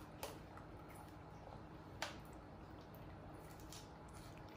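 Faint clicks and wet smacks of two baby macaques chewing pomegranate, over a quiet room hum. A sharp click about two seconds in is the loudest, with a lighter one just after the start and a few soft ticks near the end.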